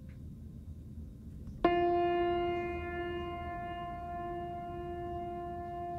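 A single musical note struck once about a second and a half in, then ringing on at a steady pitch and slowly fading.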